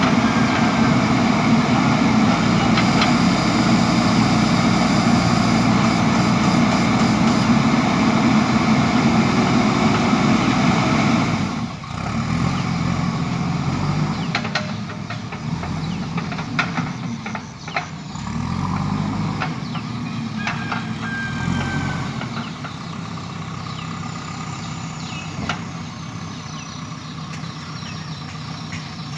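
JCB 3DX backhoe loader's diesel engine running hard and steadily, then dropping suddenly to a quieter, uneven running about twelve seconds in, with a few short knocks after that.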